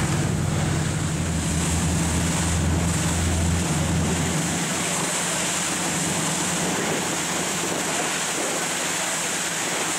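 Wind and rushing water noise from a moving boat, over a steady low boat-engine hum that fades out about halfway through.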